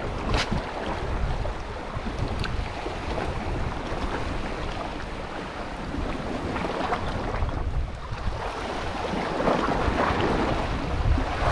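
Wind buffeting the microphone over the steady wash of sea waves, with a short click about half a second in.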